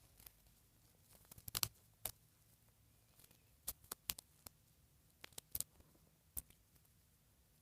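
Faint handling noises from dressing an 18-inch doll: scattered small clicks and taps, with a quick cluster about a second and a half in and a few more over the next few seconds.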